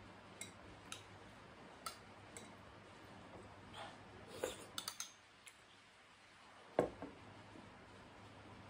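Metal spoon clicking lightly against a ceramic soup bowl while eating, a few small clinks in the first five seconds. Near the end comes a single louder knock as the bowl is set down on the wooden table.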